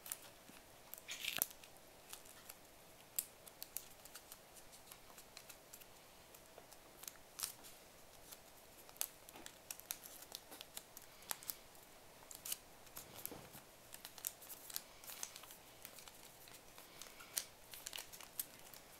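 Folded origami paper being worked by hand: faint, scattered crinkles and small crisp paper clicks as a last folded unit is pushed into a ring of paper units and pressed into place.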